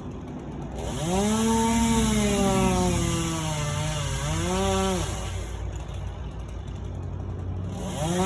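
Chainsaw revving up about a second in and running at high speed, its pitch dipping twice before it drops back to idle; it revs up again at the very end.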